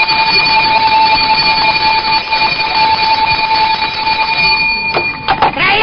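A steady, unwavering high beep-like tone over a hiss, cutting off about five seconds in, followed by a few sharp clicks.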